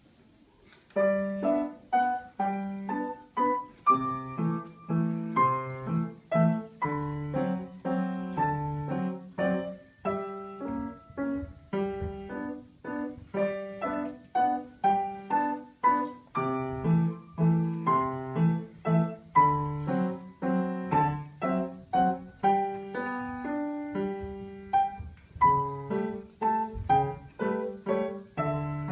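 Grand piano played solo, beginning about a second in: a steady run of struck notes and chords, each ringing and fading before the next.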